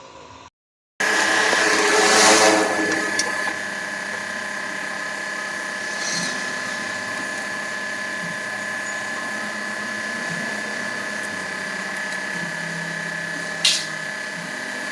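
Hyundai Starex power steering pump whining steadily with the engine running. It swells louder for a moment about two seconds in, and there is a sharp click near the end.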